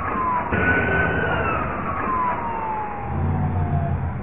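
Siren wailing, its pitch holding high and then sliding slowly down, starting over once, over steady road noise. A low engine rumble comes in near the end.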